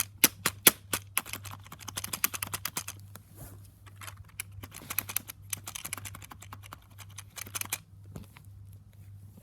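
Typing on a computer keyboard: fast runs of key clicks, with a few harder strokes in the first second and a pause near the end.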